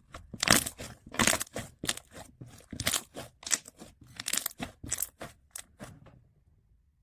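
Slime being squeezed and pressed by hand, making a run of short crackling pops about two a second that die away near the end.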